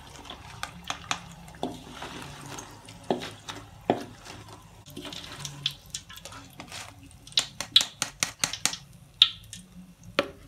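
A wooden spatula and a wire-mesh strainer clinking and scraping against a wok as fried potato-cheese sticks are scooped out of the oil, over a faint sizzle. There is a quick run of sharp taps about seven to nine seconds in.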